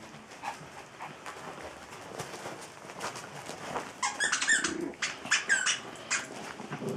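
Biewer terrier puppies squealing and yelping during rough play: a quick run of high-pitched squeaks, some bending in pitch, starting about four seconds in and lasting about two seconds, over soft scuffling on a blanket.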